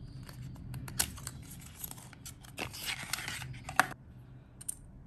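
A small paperboard lip-tint box being opened by hand and the tint tube slid out and uncapped: crisp rustling and scraping of card and plastic with irregular sharp clicks, the loudest about a second in and near four seconds in.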